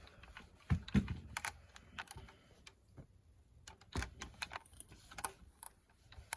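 Tabletop handling noise: irregular light taps and clicks, with heavier thuds about a second in and again around four seconds, as a clothes iron is picked up, set down and pressed on a folded fabric edge.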